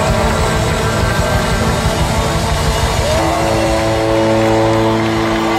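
Rock band playing live, heard as a loud, distorted recording: drums, bass and electric guitars. About three seconds in the drumming thins out and a sustained chord is held.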